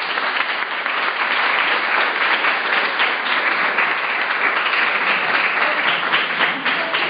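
An audience applauding: many hands clapping in a steady dense patter, fading soon after it ends.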